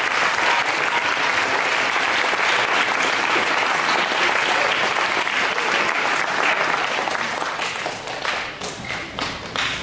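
Audience applauding: dense, steady clapping that thins to scattered individual claps near the end.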